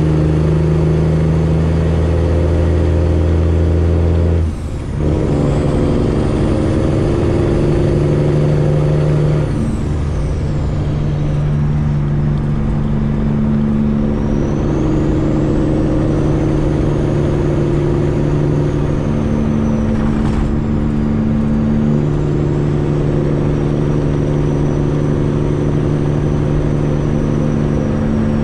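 Freightliner Classic XL semi truck's straight-piped diesel engine running steadily under way. The sound dips briefly about four and a half seconds in, and its pitch changes near ten seconds.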